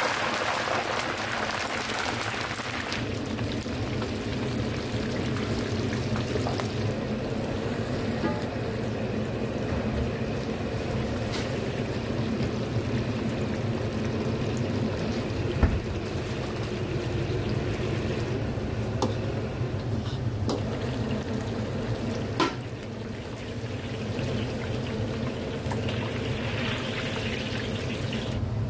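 Stir-frying in a wok: food sizzling over a steady burner hum, with a louder hiss in the first three seconds and a few sharp clicks of utensils on metal.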